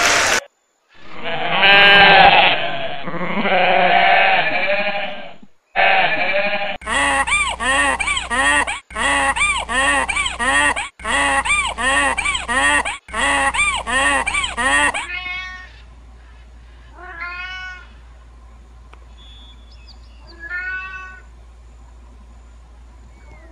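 A string of edited-together animal calls. First come a few loud pitched calls, then a long run of quick, repeated arching calls broken by short cuts. Near the end there are two or three faint mews.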